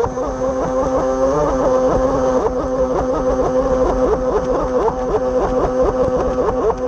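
Electric RC boat's brushless outrunner motor (Leopard 4074, 1400KV) whining at speed, heard from the cowl; the whine dips and recovers in quick repeated swoops, about three a second, as the hull skips over rough, choppy water.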